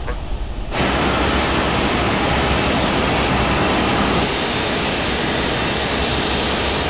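Steady, loud rushing noise of the Airbus A380 taxiing, its jet engines and airflow heard as an even hiss. It cuts in abruptly about a second in and shifts slightly in tone a few seconds later.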